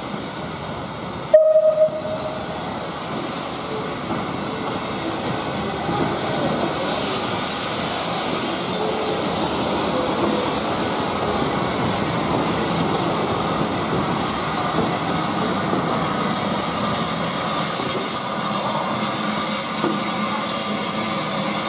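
L&YR Aspinall class 27 0-6-0 steam locomotive moving slowly, giving one short, loud whistle toot about a second and a half in. After that comes a steady noisy hiss and rumble as it draws up close.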